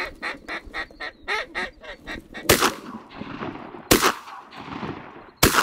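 A fast run of duck quacks, then three shotgun shots about a second and a half apart.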